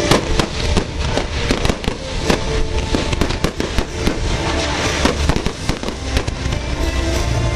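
Fireworks going off in rapid succession: many sharp bangs and crackles close together, a dense barrage with no gaps.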